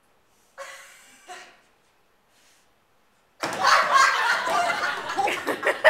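People laughing: a short stifled snicker early on, then loud laughter breaking out about three and a half seconds in.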